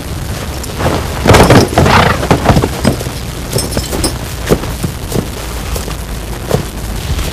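Wind rumbling on the microphone, with rustling and irregular thuds and knocks as horses move through tall grass; the loudest rustling comes a second or so in.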